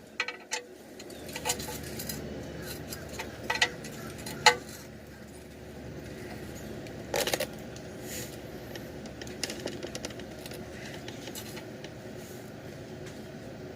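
Scattered metallic clicks and clinks of a wrench on an oil drain plug as it is snugged down to crush a new aluminum crush washer, over steady low background noise.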